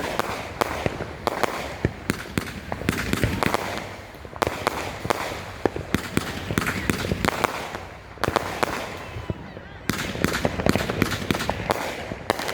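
A 500 gram consumer firework cake firing its shots in clusters: sharp launch reports, each followed by hissing and crackle from the scrambling comets.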